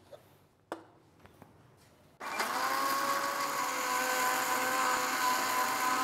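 Electric mixer-grinder with a steel jar starting up about two seconds in and running steadily with a high motor whine, grinding cooked tomato and onion into a thick paste with no water added. A couple of light clicks from the jar come before it starts.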